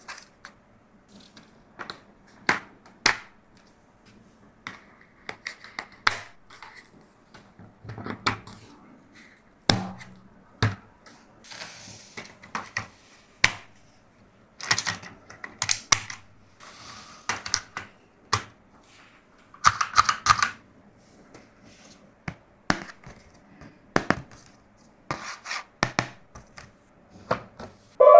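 Toys being handled: irregular clicks, taps and scrapes of hard plastic pieces, with short stretches of rustling.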